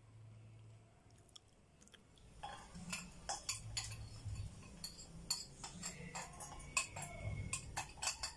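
Kitchen utensils clinking and tapping against a metal pot: irregular sharp clicks, several a second, starting about two seconds in.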